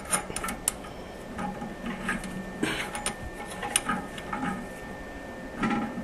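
Irregular light clicks and scrapes of a metal nut being turned by hand onto the threaded brass shank of a toilet ball cock fill valve.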